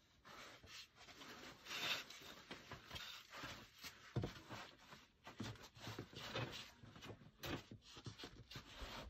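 Clothing and climbing shoes scraping and rubbing against granite as a climber wriggles up a narrow squeeze chimney between boulders: irregular scuffs throughout, with a soft thump about four seconds in.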